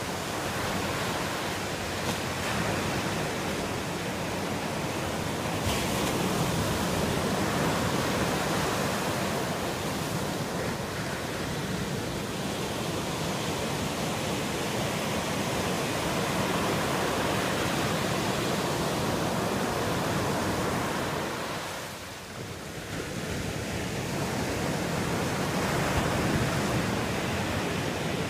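Ocean surf breaking and washing up a rocky beach: a continuous rush of water noise that eases briefly about three-quarters of the way through, then builds again.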